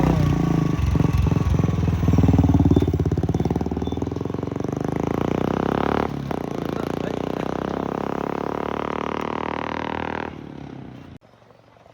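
Motorcycle engine revving, loudest about two to three seconds in, then running on steadily before dropping away near the end.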